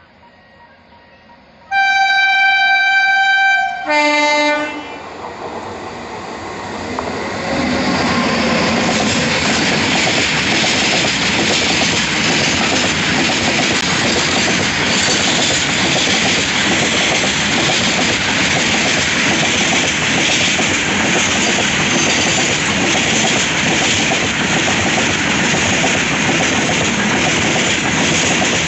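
An Indian Railways WAG-9 electric locomotive's horn sounds a long high note for about two seconds, then a short lower note. The train then passes close by: the locomotive and a loaded freight train of open wagons, with a steady rumble and clatter of wheels on rail.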